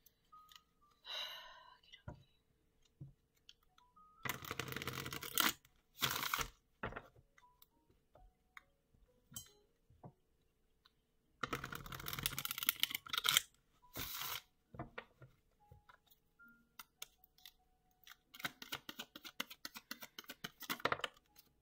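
A deck of tarot cards shuffled by hand, in several separate bursts of rustling and riffling, the longest about two seconds.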